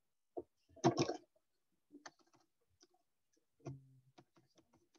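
Typing on a computer keyboard: a run of light, irregular key clicks. A short louder noise comes about a second in.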